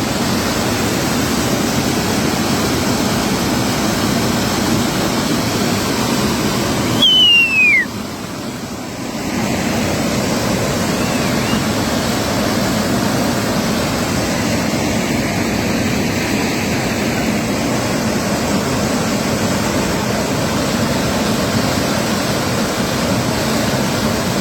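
Floodwater rushing loudly and steadily in a river in spate. About seven seconds in, a brief high whistle falls sharply in pitch.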